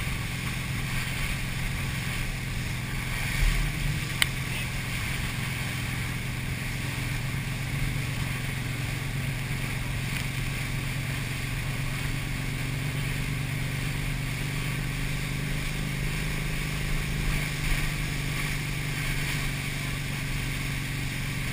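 Motorboat engine running steadily at speed while towing, with the rush of water from the churning wake and wind on the microphone. A sharp click about four seconds in.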